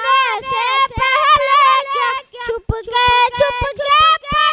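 A young boy singing an Urdu naat solo, one voice with no accompaniment, the melody bending and held in long notes, with brief breaks for breath about two and a half seconds in.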